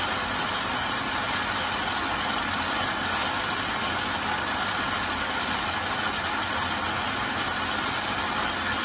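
Countertop jug blender running steadily at one speed, blending pomegranate seeds and water into juice.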